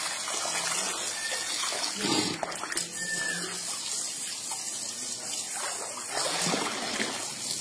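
Asian elephant calf rolling and thrashing in a water-filled trough, the water splashing and sloshing the whole time, with bigger splashes about two seconds in and again near the end.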